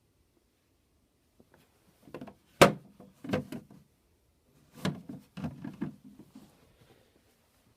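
Handling knocks, clicks and short rattles in two clusters, with the sharpest click about two and a half seconds in; no motor is running.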